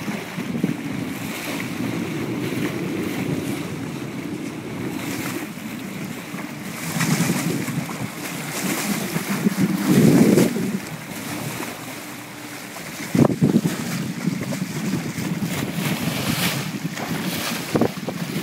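Wind buffeting the microphone of a moving boat at sea, over the rush of water along the hull and a low steady hum. The wind swells loudly about ten seconds in, and there is a short thump about thirteen seconds in.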